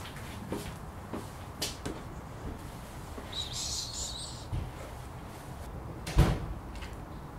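A few light knocks and a short hiss, then one dull thump about six seconds in, the loudest sound.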